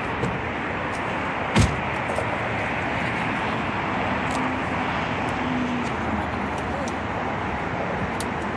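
Steady road and wind noise of a car driving at speed, heard from inside the cabin, with one sharp knock about a second and a half in.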